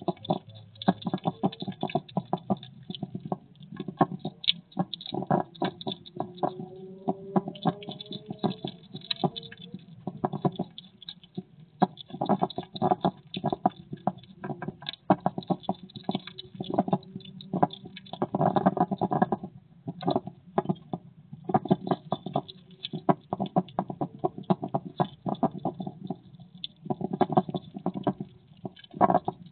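Hedgehog eating slugs close to the microphone: rapid chewing and smacking clicks in long runs, broken by brief pauses.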